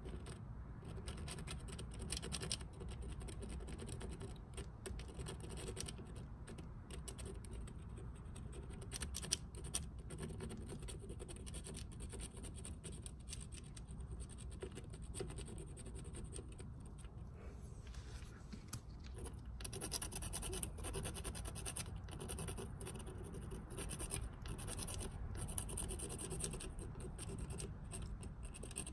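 Tip of a Dupli-Color touch-up paint pen scratching and dabbing along the gouged edge of an aluminium alloy wheel, a long run of short, irregular scratchy strokes. They come thickest a few seconds before the end.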